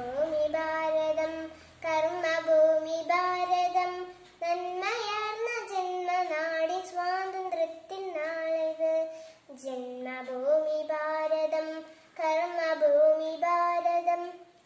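A young girl singing solo and unaccompanied, holding long notes in phrases separated by brief pauses for breath.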